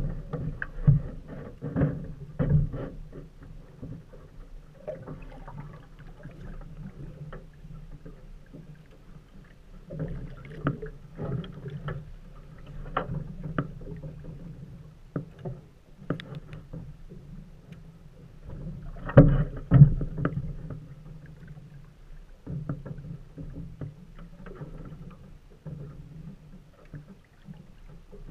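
Small waves lapping and slapping against the metal hull of a small fishing boat, with irregular knocks on the hull, loudest about twenty seconds in.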